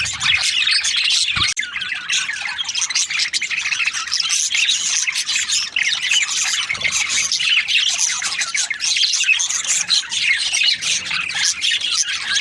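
A flock of budgerigars chattering, many quick chirps and calls overlapping without a break.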